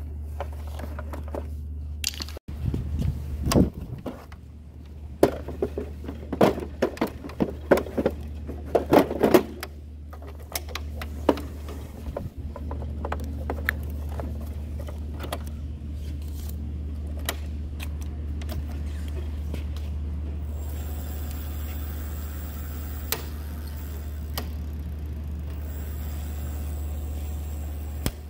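Clicks, knocks and clatter of a plastic e-bike battery pack being handled and fitted into the bike's frame, busiest in the first ten seconds and sparser after, over a steady low hum.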